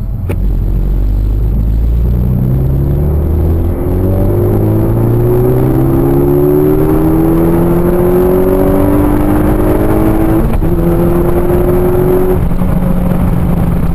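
Peugeot RCZ R's 1.6-litre turbocharged four-cylinder engine pulling hard under full acceleration in third gear, heard from inside the cabin. Its pitch rises steadily as the revs climb, then levels off near the end.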